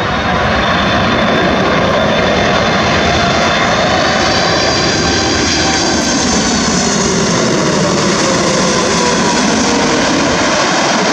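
Boeing 747 freighter's four jet engines roaring as it comes in to land low overhead, with whining tones that bend and then drop in pitch as it passes.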